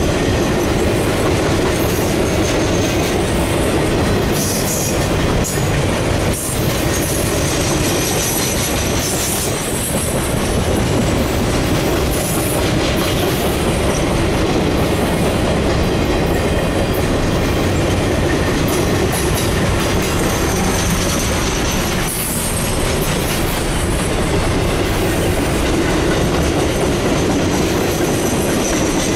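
Norfolk Southern train of Triple Crown RoadRailer trailers passing close by, its wheels rolling on the rails in a steady, loud, continuous rumble.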